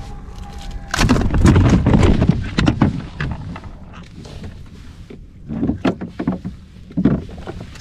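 Water splashing and knocks against a plastic kayak hull as a large catfish is hauled aboard, loudest about a second in, with shorter splashes and thumps near the end.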